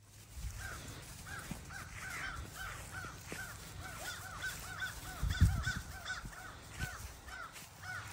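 A rapid series of short, arching animal calls, about three a second, that keep on without a break. Low thumps come through under the calls, the loudest about five seconds in.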